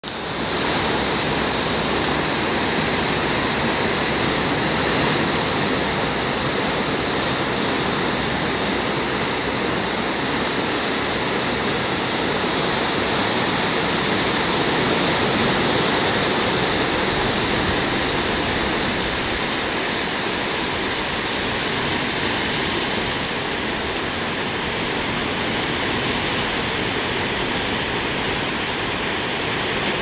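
Ocean surf breaking and washing over a rocky shore: a steady rushing of waves with no separate crashes standing out.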